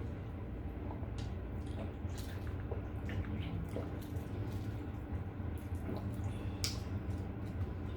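Wet chewing and mouth noises of people eating, a scatter of short clicks and smacks over a steady low hum.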